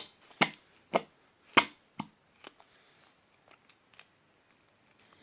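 A few short sharp clicks and taps from handling and squeezing a plastic paint bottle over a bowl: four louder ones in the first two seconds, then fainter scattered ticks.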